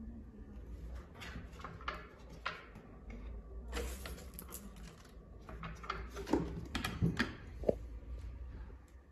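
Hard plastic clicks and knocks of a plastic fibre-optic distribution box being handled as its hinged lid is swung down and shut. The loudest knocks come between about six and eight seconds in, over a steady low hum.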